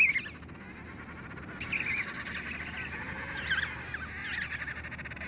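Emperor penguin chick calling: short, high, warbling whistles in three bursts, at the start, about two seconds in and again a little past three seconds.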